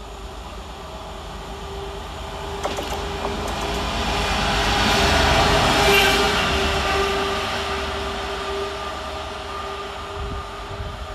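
GB Railfreight Class 66 diesel-electric locomotive passing through at speed, its two-stroke V12 engine note steady throughout. The engine and wheel noise grows to a peak about six seconds in as the loco goes by close, then fades as it runs away.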